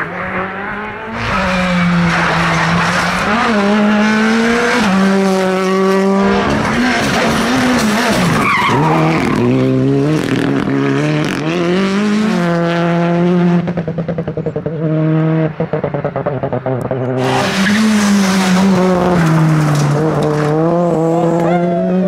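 Rally car engines at full throttle, the note climbing and dropping again and again through gear changes and lifts. About two-thirds of the way through, the engine note drops and stutters for a few seconds before pulling hard again.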